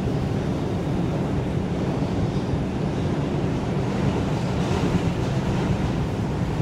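New York City subway train running at speed underground, heard from inside the car: a steady, low rumble of wheels and running gear with a faint hiss over it.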